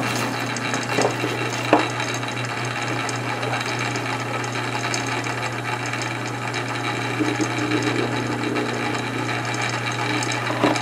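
Small benchtop metal lathe running with a steady motor hum while a twist drill in the tailstock bores into a spinning pot-metal carburetor cap. A couple of sharp ticks about one and two seconds in.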